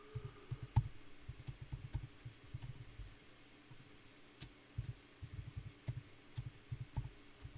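Computer keyboard typing: quick, irregular keystrokes, faint, with a pause of about a second a little past three seconds in before the typing resumes.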